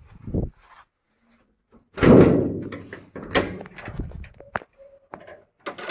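A heavy slam about two seconds in, ringing on for about a second, after a soft thump at the start, followed by several lighter knocks and clicks.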